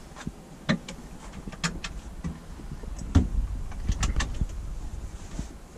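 Small wooden kitchen cabinet doors being opened and handled, giving a series of sharp clicks and knocks with things shifting inside; the loudest knock comes about three seconds in.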